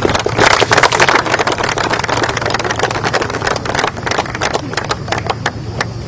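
Applause from a small outdoor gathering: many hands clapping irregularly, heaviest in the first second or two and thinning after, over a low steady hum.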